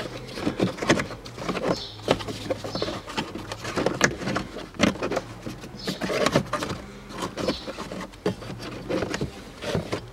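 A pleated cabin air filter scraping, rustling and knocking against its plastic housing as it is pushed and shifted into the slot by hand: irregular scrapes and clicks.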